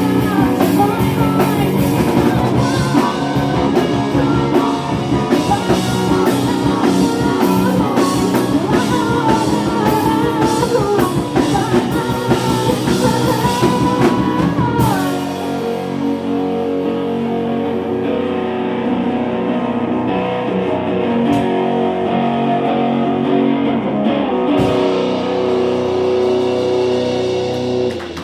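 Live rock band playing, with electric guitars, drum kit and singing. About halfway through, the drums stop and the guitars ring on in held notes until the song ends.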